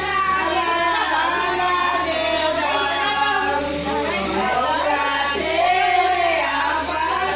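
A group of women singing together, several voices at once and not quite in unison, with some talking mixed in.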